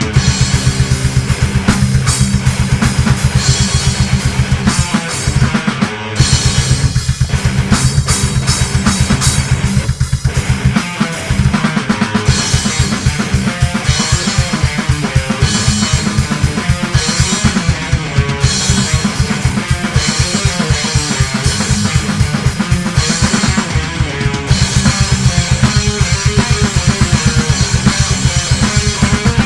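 Death metal track: fast, driving kick drum and snare under guitar, with short breaks about five and ten seconds in.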